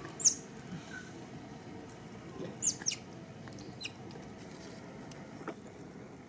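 A baby macaque giving a few short, high squeaks that fall in pitch: one near the start, a quick pair in the middle and one more soon after.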